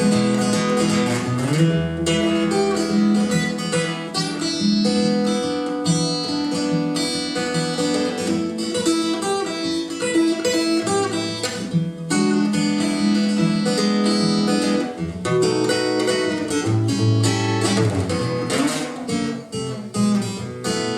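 Acoustic guitar playing a slow blues instrumental break: picked single notes over a steady bass line.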